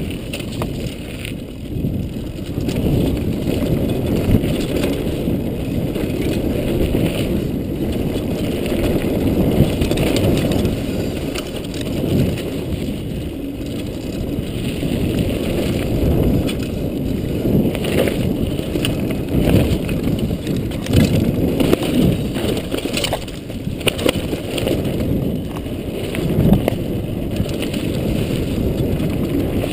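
Mountain bike descending a dirt singletrack: steady wind buffeting and knobby-tyre rumble on a chest-mounted GoPro, with frequent knocks and rattles from the bike over bumps and roots.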